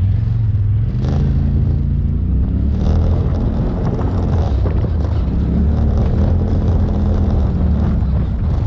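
Off-road vehicle's engine running under way on a rough dirt trail, its note shifting up and down with the throttle, over the rumble and rattle of the ride.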